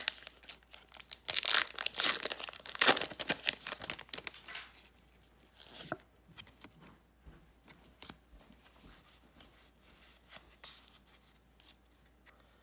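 Foil wrapper of a Pokémon TCG Hidden Fates booster pack being torn open and crinkled for the first few seconds, then only faint scattered clicks as the cards are handled.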